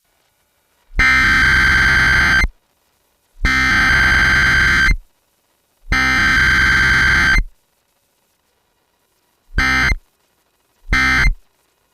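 Emergency Alert System SAME data tones: three harsh, buzzing header bursts of about a second and a half each, then after a pause two short end-of-message bursts. This digital alert code marks the start and end of an EAS test broadcast.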